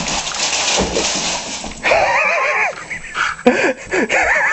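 Dog whining in high, wavering cries, a long one about two seconds in and shorter ones near the end, after a noisy rustle at the start.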